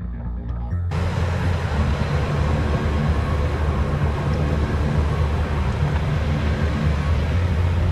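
Vehicle engine and road noise: a steady low rumble that gets louder about a second in.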